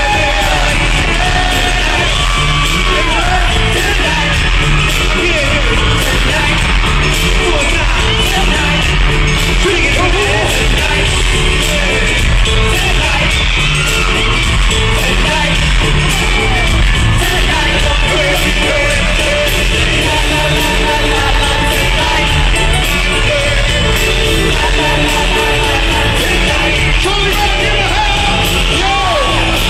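Loud amplified live pop music with a man singing into a microphone, with fans yelling and whooping close by.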